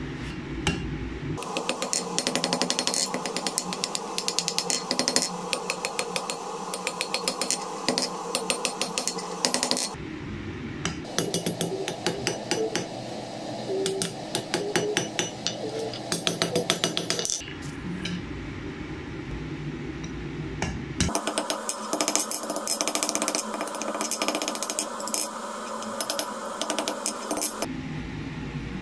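Hand hammer striking red-hot steel bar stock on an anvil: three runs of quick repeated blows separated by short pauses.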